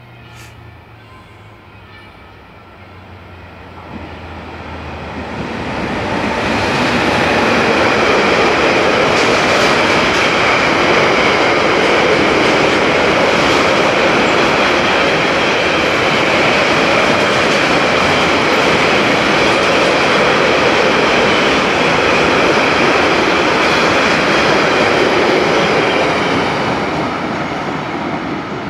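A train comes up the line and runs past along the platform. Its wheel-on-rail noise swells over a couple of seconds and then holds at a loud, steady level for about twenty seconds.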